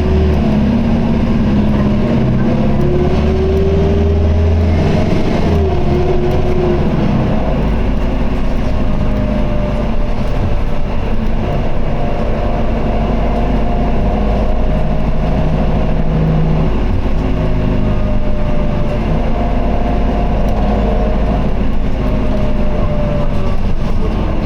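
Interior running sound of an Isuzu 2PG-LV290N3 city bus under way: steady diesel engine and drivetrain rumble with a whine that rises and falls in the first few seconds, then holds steadier tones. A slight abnormal noise from the drivetrain is reported for this bus.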